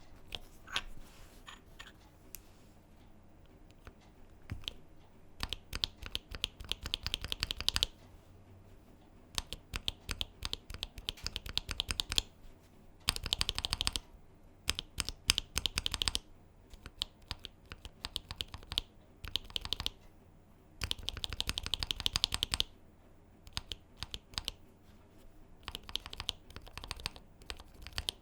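Stock Gateron Oil King linear mechanical keyboard switches being pressed in a switch tester: scattered single keystrokes between several runs of fast repeated presses.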